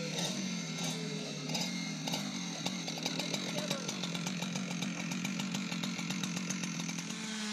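Two-stroke Husqvarna chainsaw running steadily without cutting.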